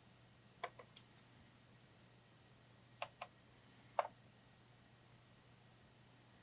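Faint small clicks, about six in three short groups, as screws are backed out of a server's side cable cover.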